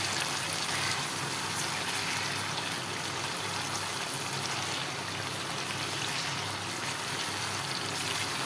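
Chicken pieces sizzling in hot ghee in a wok as a silicone spatula stirs them: a steady frying hiss. The masala is fully fried down (bhuna), with the ghee separated and risen to the top.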